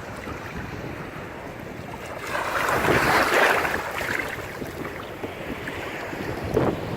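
Ocean surf with wind buffeting the microphone; a wave breaks and washes in from about two seconds in, loudest around three seconds, with a shorter surge near the end.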